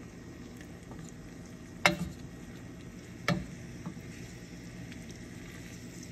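Tofu cubes sizzling in oil in a nonstick frying pan as a wooden spoon stirs them, with two sharp knocks about two seconds in and again a second and a half later, the spoon striking the pan.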